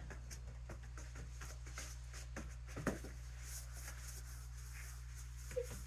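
Quiet room tone with a steady low hum, faint rustles and light clicks, and a single sharper tap about three seconds in.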